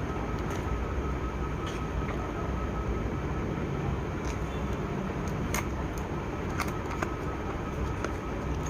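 Packaging of a USB cable being handled and opened: scattered short clicks and crinkles over a steady low background rumble.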